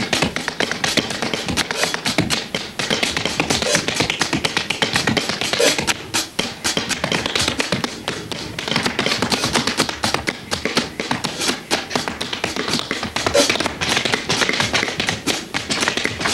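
Tap shoes striking a wooden stage floor in fast improvised tap-dance rhythms, dense runs of sharp clicks, with drumming behind them.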